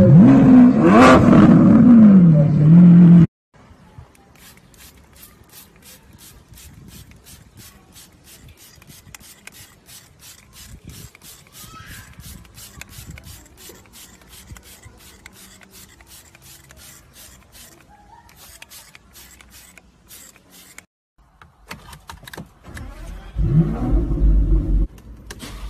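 A sports car engine revs loudly, rising and falling in pitch, then cuts off abruptly about three seconds in. A trigger spray bottle follows with a long run of quick squirts, about three a second. Near the end another car engine revs loudly.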